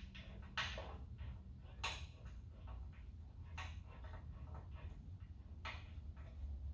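Faint, scattered light clicks and taps of hand work on a truck's front bumper panel, five or so spaced a second or more apart, over a low steady hum.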